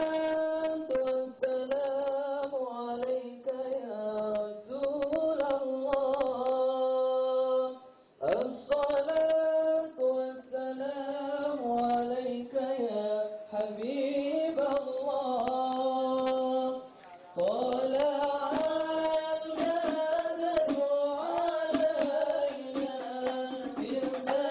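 Sung devotional chant: a melody held in long notes, phrase after phrase, with short breaks about eight seconds and seventeen seconds in.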